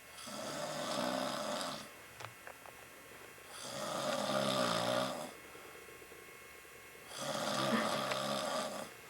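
A man snoring loud and clear in his sleep: three long snores, one about every three and a half seconds, with quiet breathing gaps between.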